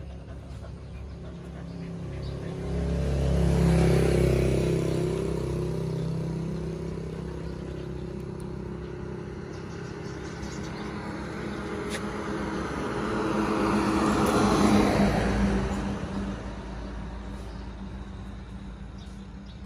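Two motor vehicles passing by, each engine growing louder and then fading away; the first is loudest about four seconds in, the second about fifteen seconds in.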